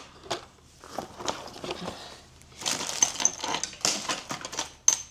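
Metal jewelry clinking and jingling as it is handled and sorted: an uneven string of light clicks and rattles, with brief high metallic ringing twice in the second half.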